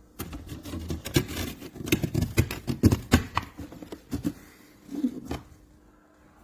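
Handling noises: a quick, irregular series of clicks, taps and rustles for about five seconds, thinning out and stopping near the end.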